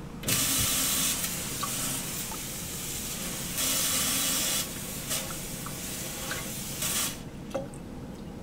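Water running from a sensor-activated faucet into a stainless steel sink, splashing over hands and forearms as they are wetted for a surgical scrub. It swells louder twice and cuts off sharply about seven seconds in.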